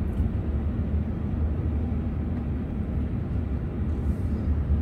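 Steady low rumble of a moving car heard from inside the cabin: tyre and engine noise at cruising speed on a winding road.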